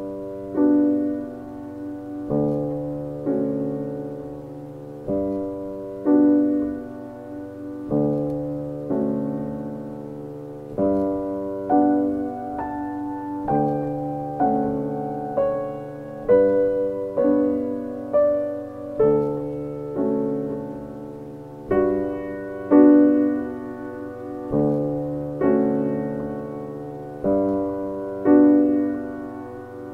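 Background piano music: slow, gentle notes and chords, a new one struck every second or so and each dying away.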